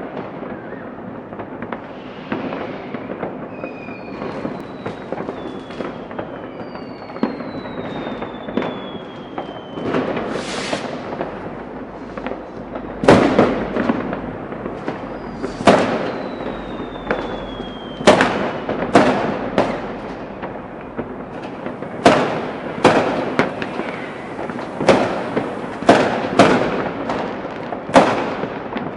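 New Year's Eve street fireworks: a steady crackle of firecrackers, with several falling whistles in the first half, then from about halfway a run of loud bangs, one every second or two.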